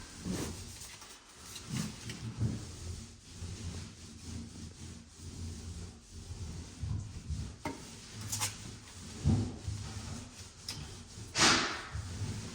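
Drywall tape being pressed and smoothed into joint compound along the patch seams: short, irregular rubbing and scraping, with one louder scrape near the end.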